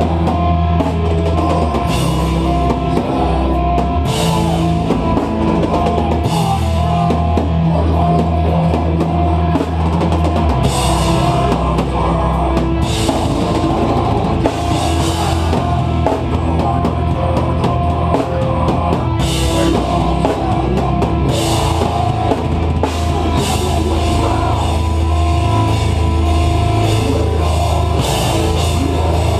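Deathcore band playing live at full volume: distorted, heavy guitars and a drum kit with repeated cymbal crashes, and harsh screamed vocals.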